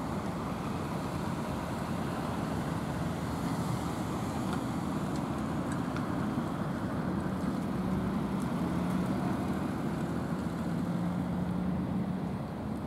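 Steady low engine rumble, with a faint low hum that stands out from about eight seconds in until near the end.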